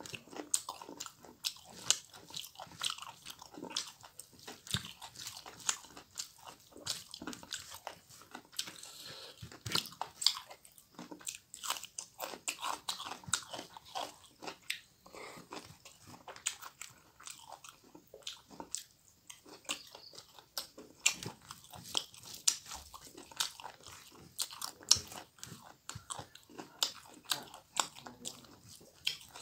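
Close-miked chewing of a mouthful of food: many irregular sharp crunches and wet mouth clicks going on without a break.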